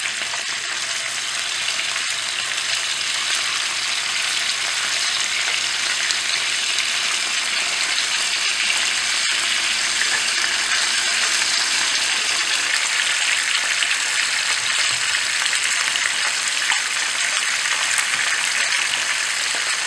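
Whole koi fish sizzling steadily as they shallow-fry in mustard oil in a pan. A wooden spatula now and then moves and turns the fish, with a faint knock about nine seconds in.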